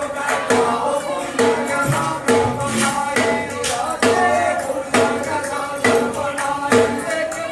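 Music with a steady percussive beat of about two strokes a second over a pitched melody.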